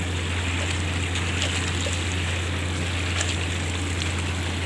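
Pool water trickling and lapping as an American Akita paddles across a swimming pool, over a steady low hum.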